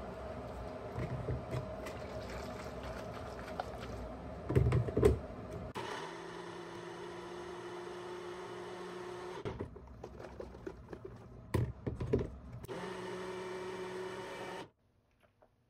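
Ninja personal blender: the cup knocks loudly onto the motor base, then the motor runs steadily for about four seconds, pauses with a couple of knocks, and runs again for about two seconds before cutting off abruptly.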